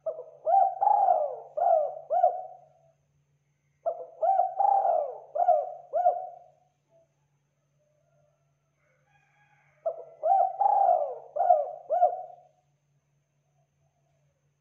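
Spotted dove (tekukur) singing its cooing song: three phrases of several quick coos each, with a longer pause before the third.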